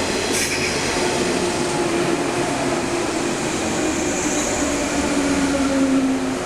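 An electric train running at a station platform: the steady rumble of wheels and running gear, with a low motor tone that falls in pitch near the end. There is a brief hiss about half a second in.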